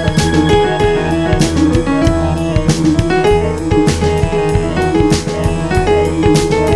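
Background music: an upbeat piano-led instrumental with a steady drum beat.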